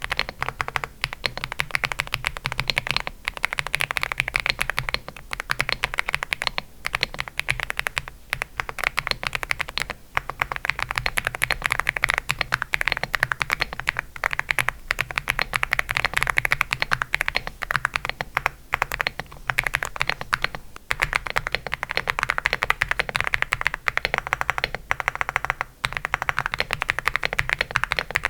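Fast, continuous typing on an Aula F75 mechanical keyboard with Outemu Hanny linear switches. It starts on Cherry-profile keycaps, changes to SA-profile keycaps about 11 seconds in and to MDA-profile keycaps about 21 seconds in, with a brief pause at each change.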